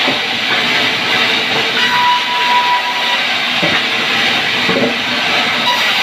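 A sawmill band saw running while it cuts a log lengthwise into slabs: a loud, steady, hissing machine noise, with a short whine about two seconds in.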